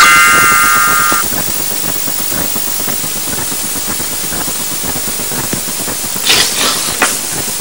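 Animated-film soundtrack: a chord of high, whistle-like tones holds and stops about a second in. Steady hiss follows, with two brief noisy sound effects near the end.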